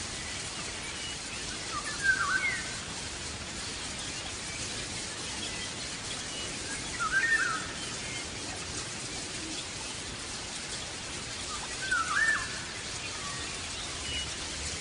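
A bird calling three times, about five seconds apart, each call a short twisting phrase, over a steady background hiss.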